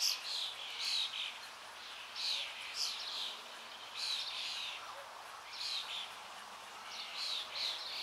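Babblers calling: short, harsh chattering notes given in quick twos and threes, with brief pauses between the bursts.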